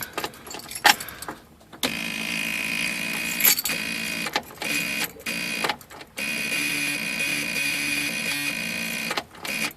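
Glow plug relay of a 1978 VW Rabbit diesel buzzing steadily, with a few short breaks, after a few clicks. The noise is the relay fault that came on with the no-start.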